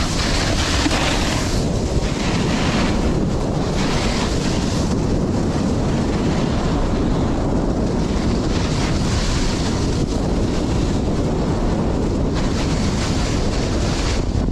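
Heavy wind buffeting the microphone of a moving snowboarder. Over it, a hiss swells and fades every second or two as the snowboard carves turns across the snow.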